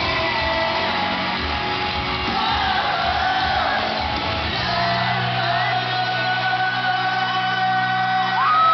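Live pop-rock band and singing in an arena, recorded from among the audience, with fans screaming and whooping over the music; a long high scream rises near the end.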